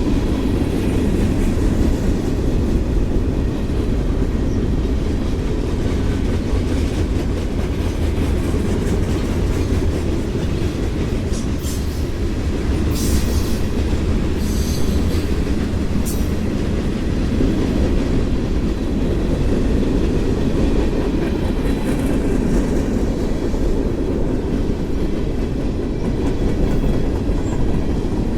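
Freight cars of a mixed manifest train rolling past: a steady heavy rumble with the clickety-clack of wheels over the rail joints, and a few brief high-pitched wheel squeaks about halfway through.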